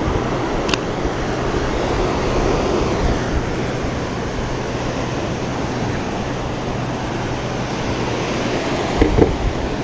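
Steady rush of breaking surf and wind on the microphone, with a faint low hum underneath, a sharp click about three-quarters of a second in and a couple of low thumps near the end.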